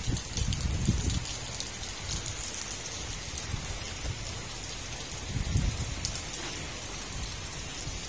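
Steady rain falling, a constant hiss with many fine drop ticks, as water drips off a roof edge. A few low rumbles about a second in and again around five and a half seconds.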